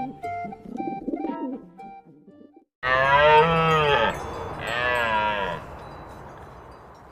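Mourning dove cooing softly over light background music, then two long, loud calls from a large hoofed animal, each dying away in a reverberant tail.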